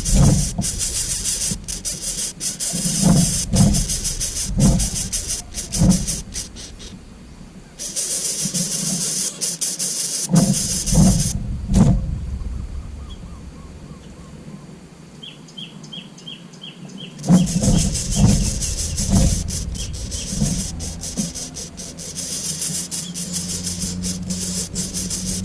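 Greater coucal giving its deep, hollow hooting call in short series of three or four notes, repeated several times, over a high hiss that comes and goes. A quick run of faint, high chirps sounds about midway.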